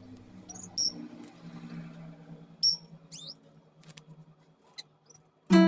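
Fischer's lovebird chicks giving short, high squeaky chirps, the loudest about a second in and near three seconds in, typical of begging calls at hand-feeding. A faint held note of music fades underneath, and a song starts loudly near the end.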